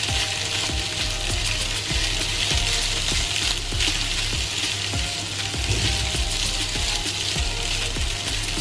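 Leftover rice with garlic and onions sizzling in oil in a hot nonstick frying pan, stirred and turned with a silicone spatula, with soft irregular scrapes and knocks against the pan.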